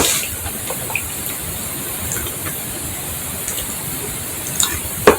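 Wet mouth clicks and smacks from eating a banana, a few faint ones scattered through and two sharper ones near the end, over a steady hiss.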